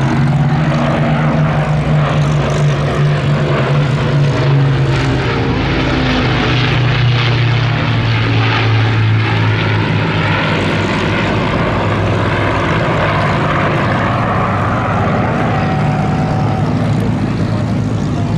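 Rolls-Royce Merlin piston aero engines of an Avro Lancaster bomber flying over: a loud, steady propeller drone. The engine note drops a little in pitch about halfway through.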